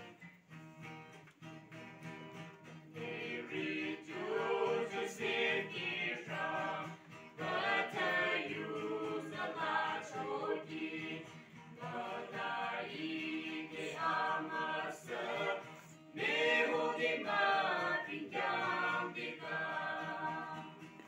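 A small mixed vocal group singing a gospel hymn in harmony to acoustic guitar. The guitar plays alone at first, and the voices come in about three seconds in, singing in phrases of a few seconds.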